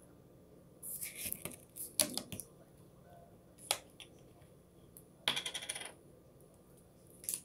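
Aluminium can of Coca-Cola Zero Sugar being opened: the ring-pull cracks and the fizz hisses about a second in. A single sharp metallic click follows later, and another short burst of hiss comes near the end.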